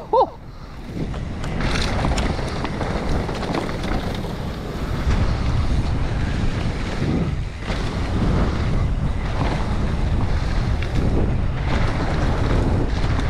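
Wind rushing over an action camera's microphone as a mountain bike rides down a dirt trail, with tyre rumble and bike rattle underneath, rising and falling with the rider's speed.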